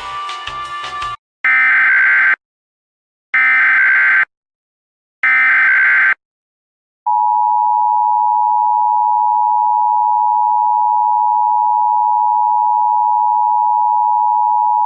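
Music ends about a second in. Then come three one-second bursts of Emergency Alert System SAME header data tones, the digital warble that encodes the alert. After a short gap the EAS two-tone attention signal begins and holds steady for about eight seconds, announcing that an emergency alert message follows.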